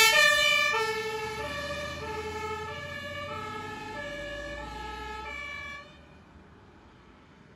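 German fire engine's two-tone siren (Martinshorn) alternating between a high and a low note, each held a little under a second, fading as the truck drives away and cutting off about six seconds in. A faint low engine rumble runs under it.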